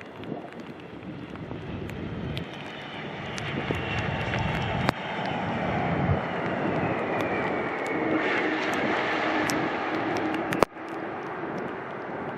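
Jet airliner passing close by in a storm: the engine noise builds, and a turbofan whine falls steadily in pitch as it goes past. Under it runs rain and wind noise on the microphone, with sharp clicks throughout; the loudest click comes near the end.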